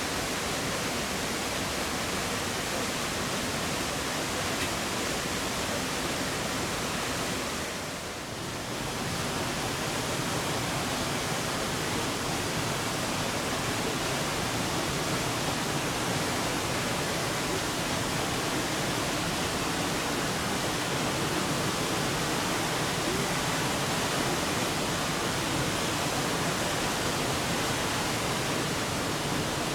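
Steady rushing of water from Ryūzu Falls, a cascade tumbling down a long rocky streambed. The level dips briefly about eight seconds in, then comes straight back.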